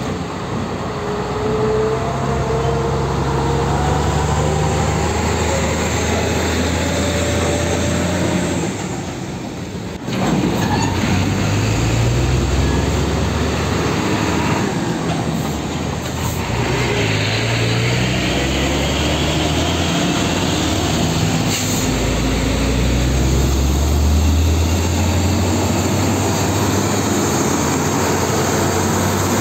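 Diesel engines of heavy container trucks, Volvo FL-series cabover tractors and a Hino 500, running and pulling past at low speed as a steady deep rumble. The sound changes abruptly about ten seconds in, as a different truck takes over.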